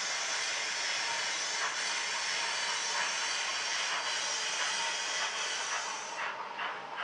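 Model steam locomotive sound-decoder audio from an OO gauge layout: a steady hiss of steam, then about six seconds in, rhythmic exhaust chuffs begin at roughly three a second.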